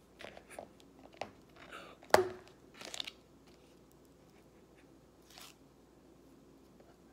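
Yellow slime being handled and pulled from a plastic tub: a quick series of sharp clicks, crackles and crinkles in the first three seconds, the loudest a little after two seconds, then one faint rustle later on.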